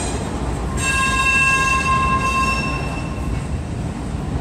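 Freight train's autorack cars rolling past with a steady low rumble. About a second in, a steel wheel squeal of several high ringing tones sets in, holds for about two seconds and fades out.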